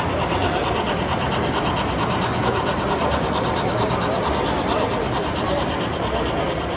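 Model steam locomotive's sound unit chuffing in a quick, even rhythm as the engine runs along the layout.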